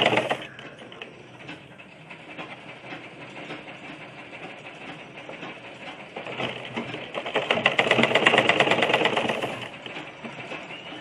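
Old black cast-iron domestic sewing machine stitching cloth in rapid runs: one burst of stitching stops just after the start, then a longer run starts about six seconds in and stops about three seconds later, with a quieter stretch between them.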